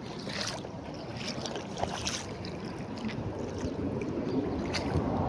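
Wind rumbling on the microphone over shallow floodwater, with a few brief splashes or ticks.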